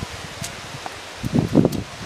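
Cauliflower leaves rustling as a freshly picked head and the plants around it are handled, with a couple of sharp clicks and a louder burst of rustling about one and a half seconds in.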